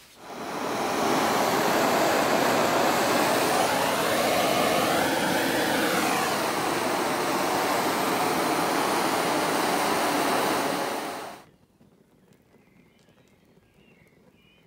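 Heat gun blowing steadily as it heats old underseal on a car's steel inner wing, with the underseal catching alight. It is a loud, even rushing blast that cuts off abruptly about eleven and a half seconds in.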